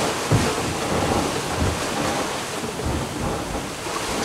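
Wind buffeting the microphone in irregular low gusts over a steady rush of sea water, aboard a sailing catamaran under way.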